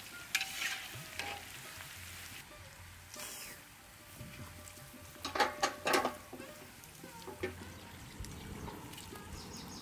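Battered eggplant strips deep-frying in hot oil in a wok, a steady sizzle. A metal skimmer clinks and scrapes against the wok as the pieces are lifted out, loudest in a cluster of sharp clicks about five and a half to six seconds in.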